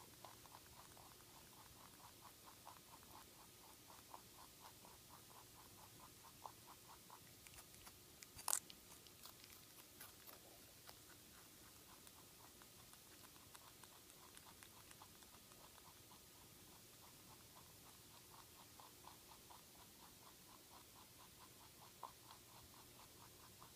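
Netherland Dwarf rabbit chewing carrot: quiet, rapid, even crunching chews. A single sharp click comes about a third of the way in.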